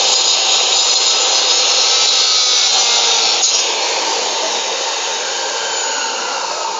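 Maktec 2000-watt electric saw with a 7-inch, 100-tooth aluminium-cutting blade, running at speed and cutting steadily through beef bone and meat.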